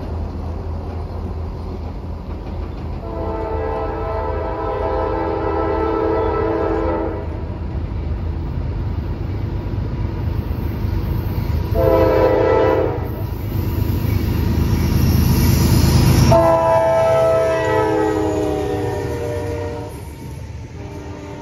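Diesel freight locomotive approaching and passing, sounding its multi-chime air horn three times: a long blast, a short one, and a final long one whose pitch drops as the locomotive goes by. The engine rumble builds to a peak as it passes, then gives way to the freight cars rolling by.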